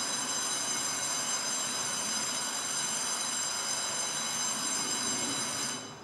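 Gakunan Railway 7000 series electric railcar standing at the station, its onboard equipment running with a steady noise and a high whine. Both stop abruptly just before the end.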